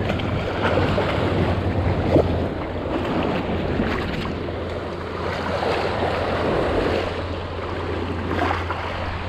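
Small surf washing over a shallow sandy beach, the water noise swelling and easing, with a steady rumble of wind on the microphone.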